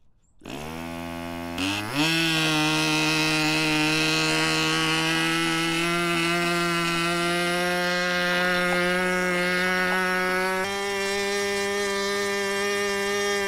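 O.S. Engines 15LA small two-stroke glow engine driving an 8x4 propeller, spun over by a handheld electric starter and catching about half a second in. Its pitch climbs over the next second and a half, then it runs steadily at high speed. About eleven seconds in the note shifts and drops slightly in level as the needle valve is turned a little richer.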